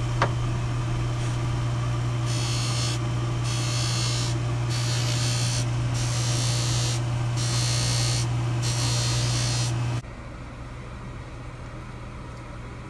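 Baldor polishing lathe's electric motor running with a steady hum, while a ring is pressed again and again against the spinning spiral-sewn cotton buff charged with tripoli compound, giving a string of short hissing bursts. About ten seconds in the hissing stops and the sound drops to a quieter motor hum.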